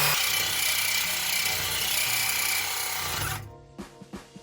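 Reciprocating saw (Sawzall) blade cutting through a steel exhaust pipe, a harsh rasping that stops abruptly about three and a half seconds in, leaving a few light clicks.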